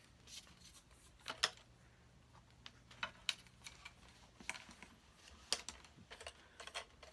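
Scattered light clicks and taps of small parts being handled, several irregular sharp ticks at a faint level.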